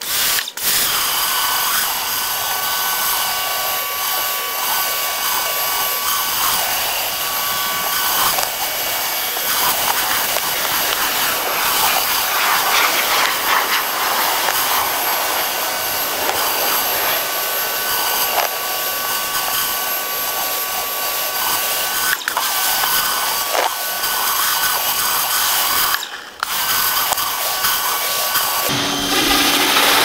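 Small 1600 PSI electric pressure washer running a Ryobi rotary surface cleaner over unsealed concrete: a steady motor and pump whine over the hiss of the spinning water jets on the slab. It kicks in at the start and cuts out briefly twice near the end.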